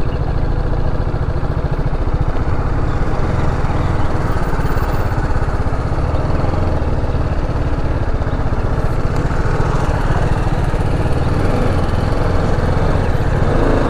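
Single-cylinder sport motorcycle engine running steadily at low revs, with no revving, heard from a helmet-mounted microphone.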